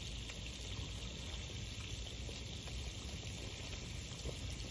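Garden hose running, water spraying steadily out of its open end onto the grass.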